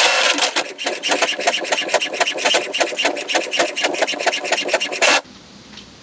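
HP Smart Tank 580 inkjet printer printing a page: a rapid, even run of clacks from the printhead carriage shuttling across and the paper feeding through, stopping suddenly about five seconds in.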